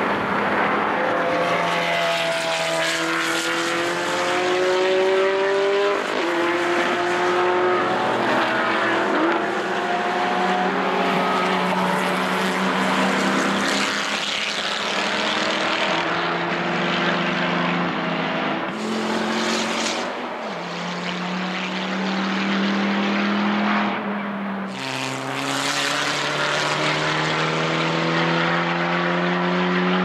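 Several race car engines at full throttle, rising in pitch and changing up through the gears again and again as the cars pass in turn and climb away.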